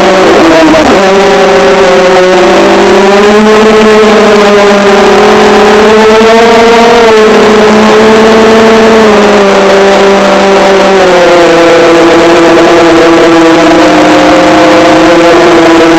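FPV quadcopter's electric motors and propellers whining, the pitch rising and falling as the throttle changes and settling a little lower in the second half.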